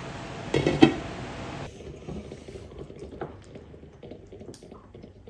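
Stir-fry sizzling in a cast-iron wok as its glass lid is lifted off, with a sharp clink of the lid a little under a second in. The sizzle cuts off suddenly after under two seconds, leaving quiet room sound with a few small clicks.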